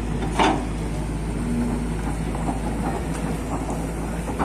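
Kobelco SK210 hydraulic excavator's diesel engine running steadily under working load, with a single sharp knock about half a second in.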